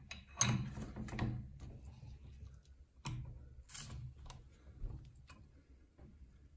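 Light clicks and taps of a metal plastisol injector against a clamped aluminium lure mould as the liquid plastic is injected, loudest in the first second or so and growing sparser toward the end.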